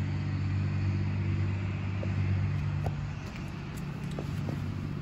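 Steady low mechanical hum of a running motor or engine, easing slightly past the middle, with a few faint ticks.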